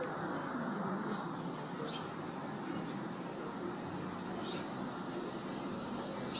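Steady outdoor background noise with a few short, faint, high bird chirps.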